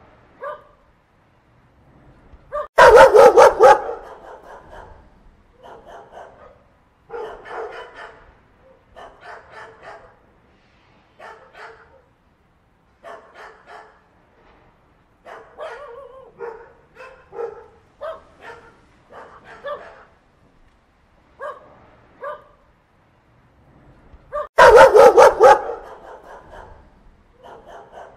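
A puppy yipping and whining in short high calls, roughly one a second, with two much louder bursts of rapid barking, one about three seconds in and one a few seconds before the end.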